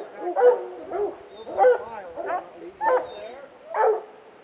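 Hunting dogs baying at a treed mountain lion: about six loud barking bawls, one every half second to a second, the call of dogs holding a cat up a tree.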